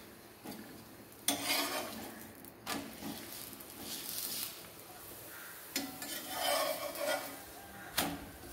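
A spatula scrapes and presses a chapati frying in oil on a tawa, with bursts of sizzling and utensil scraping, the loudest about a second in. A sharp clack comes near the end.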